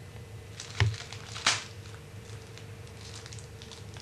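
Two short knocks over a steady low hum of room and tape noise: a dull thump just under a second in, then a sharper click about half a second later.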